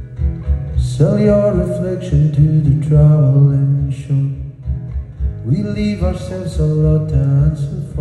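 A man singing to his own acoustic guitar, strumming in a steady rhythm. Sung phrases begin about a second in and again about five and a half seconds in, over the continuous guitar.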